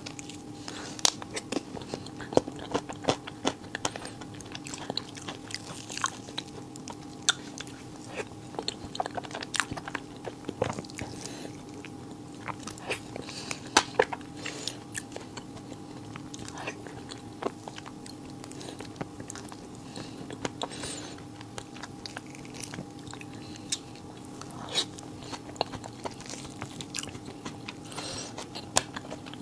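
Close-up eating sounds of a dessert: repeated bites and chewing with crisp, crunchy clicks, over a faint steady hum.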